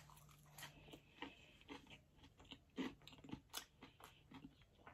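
Close-miked chewing of crunchy deep-fried food: faint, irregular crunches and mouth clicks as it is bitten and chewed.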